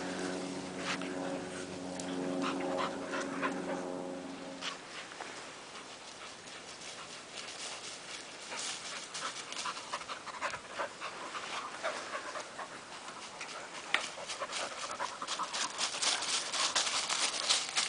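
Épagneul de Saint-Usuge spaniels panting and pushing through dry leaf litter and grass, with crackling steps that grow thicker near the end. A steady engine hum runs through the first four seconds or so, then stops.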